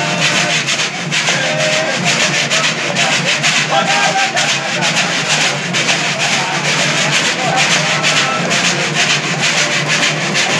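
Cururu ensemble: ganzá (notched bamboo scraper) scraped in a fast, even rhythm over the strumming of viola de cocho lutes, with voices now and then.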